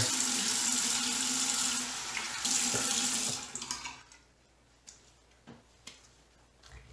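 Bathroom sink tap running as the face is rinsed with cold water after a shave. The water stops about four seconds in, leaving only a few faint clicks.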